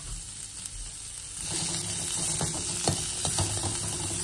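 Chopped small onions sizzling in hot oil in a pan while being stirred, the spoon giving short scraping clicks. The sizzle gets louder about a second and a half in.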